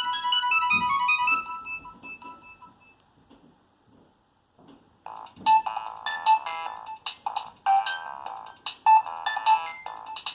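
Nokia 6225 mobile phone playing its preloaded ringtones through its loudspeaker. A run of short, high electronic notes dies away about three seconds in. After a brief silence, a busier rhythmic ringtone with several notes sounding at once starts about five seconds in.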